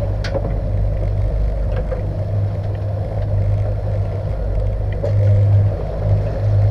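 Boat's outboard motors running steadily underway, a constant low hum, with the rush of the wake and water along the hull.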